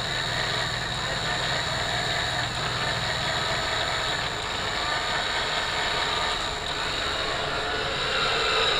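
Off-road winch motor whining steadily under load as it pulls a stuck 4x4 out of a ditch, getting louder near the end, with a low engine hum underneath.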